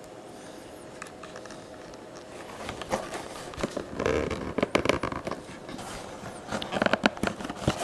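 Hands working a damp leather thong through a slit to tie a blood knot: scattered rustling, scraping and small clicks of the leather. It starts a few seconds in and is busiest toward the middle and near the end.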